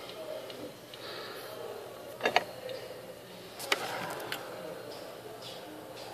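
A few sharp clicks and taps of handling noise from small repair tools and the handheld camera phone, the loudest a quick pair about two seconds in, over a low murmuring background.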